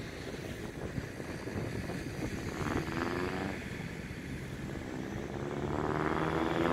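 Wind buffeting the microphone as a steady low rumble. Two drawn-out pitched calls sound over it: a short one about three seconds in and a longer, louder one near the end.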